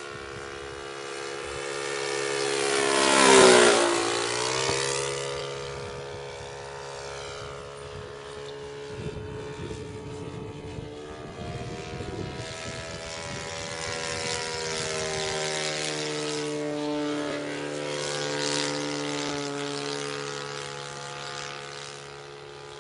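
Saito 180 four-stroke glow engine of a 1/5-scale Pica Waco model biplane in flight. It swells loud as the plane passes close about three and a half seconds in, dropping in pitch as it goes by, then drones farther off with its pitch rising and falling as the plane turns.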